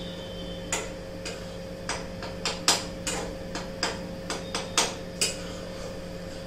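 Metal spoon clinking against a steel kadai while stirring jaggery melting in ghee: about a dozen short, irregular taps and scrapes.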